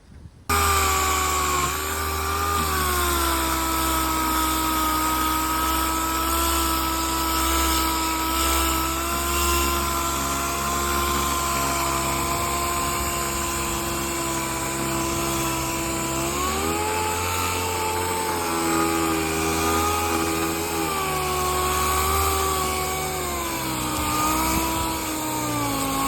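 Electric sander starting about half a second in and running steadily, sanding fibreglass filler on a boat hull. Its motor whine shifts in pitch a few times in the second half.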